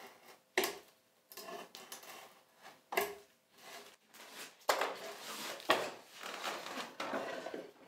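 A knife scoring along the scribe line on the edge of a board: a series of short scraping cuts in the wood, with longer strokes in the second half, deepening the groove so the saw blade will follow it.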